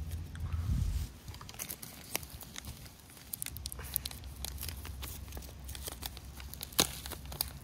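Foil-laminate drink powder pouch crinkling in the hands and being torn open along its top, a string of sharp crackles and rips with one loud crackle near the end.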